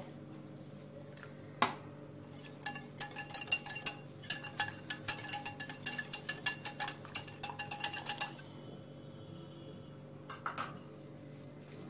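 Stainless steel wire whisk beating semolina batter in a glass bowl, its wires clinking quickly and repeatedly against the glass for about six seconds before stopping. A single clink comes shortly before the run, and a couple of faint ones near the end.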